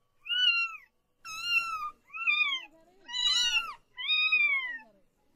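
Young kitten meowing repeatedly: five high-pitched meows in a row, each rising then falling in pitch, with short pauses between them.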